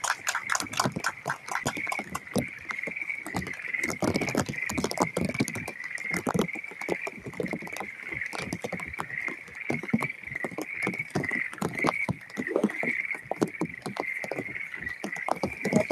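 Rain pattering in a dense, irregular run of sharp ticks, over a steady high-pitched chirring chorus.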